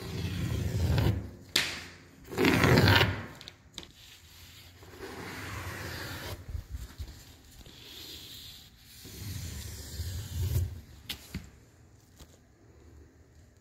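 Rubbing and scraping noises in four bursts, the loudest about two and a half seconds in, with a few short clicks near the end.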